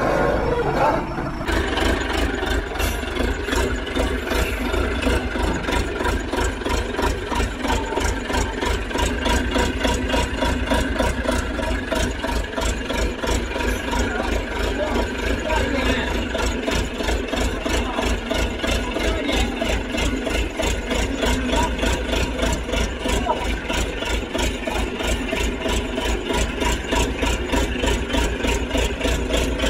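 Diesel engine of heavy machinery idling steadily with an even pulse and some rattle. It comes in suddenly about a second and a half in.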